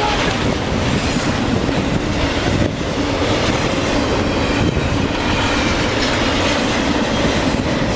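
Train running past, a loud steady rumble and rattle of wheels on the rails.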